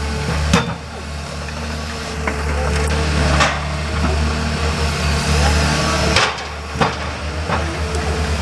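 John Deere forwarder diesel engines running steadily under crane work, with about five sharp wooden knocks as logs are set onto and knock against the load in the bunk.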